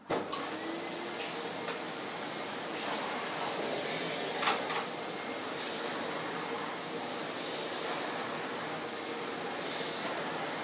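Hoover Alpina 2 cylinder vacuum cleaner switched on: the motor starts suddenly with a short rising whine as it spins up, then runs steadily with a hiss of air and a constant hum. There is a brief louder swish about four and a half seconds in.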